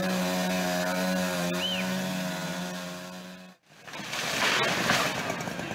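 A motor running steadily with an even drone, which cuts off abruptly about three and a half seconds in; after a brief gap comes a loud rushing noise.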